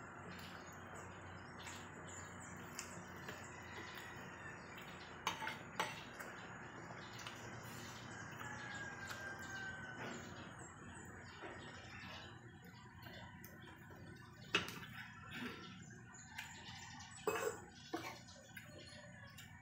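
Metal spoon and fork clinking on a ceramic plate during eating: a couple of sharp clinks about five seconds in and a cluster of them in the last few seconds, over a steady background hiss that thins out about halfway.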